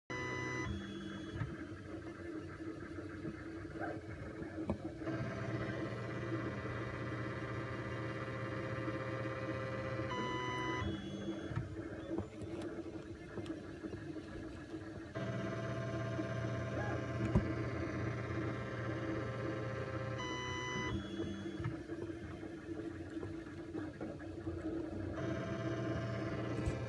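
Formlabs Form 1+ resin 3D printer running mid-print: motor whirring and buzzing tones that change in stages, repeating about every ten seconds as the printer works through each layer. Each cycle has a brief quick run of stepped tones, the motors peeling the layer, followed by longer steady whirring while the laser cures the next layer.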